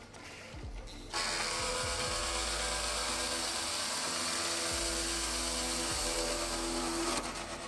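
Drill press driving a hole saw through a carbon-fibre panel: a loud, even cutting hiss with steady tones underneath, starting abruptly about a second in and stopping suddenly near the end.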